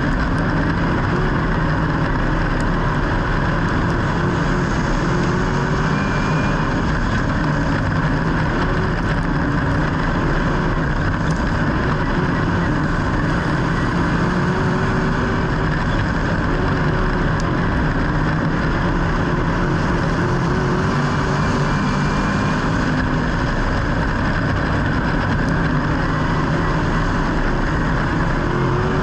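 Motor vehicle engine noise, steady and continuous, with a faint wavering pitch running through it.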